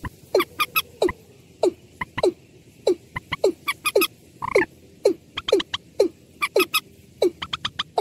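Watercock (ayam-ayaman) calls mixed with a second bird's calls: a steady series of short notes that slide down in pitch, about one and a half a second, with quick sharp ticking notes in between.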